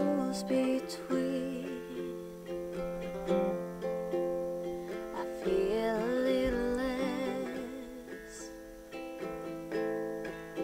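Ukulele played in a slow song, with a woman's voice singing along, holding a wavering note about six seconds in.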